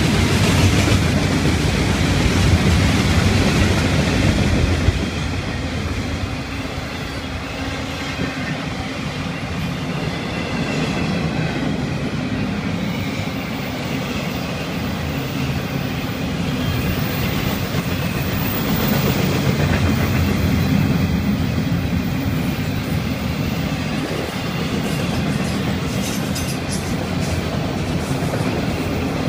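Freight cars of a long train rolling past close by: a steady rumble of steel wheels on rail, with clickety-clack over the rail joints. A little louder for the first five seconds, then steady.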